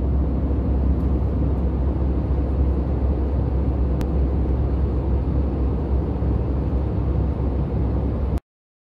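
Jet airliner cabin noise in flight: the steady low rumble and rush of the engines and airflow, cutting off suddenly near the end.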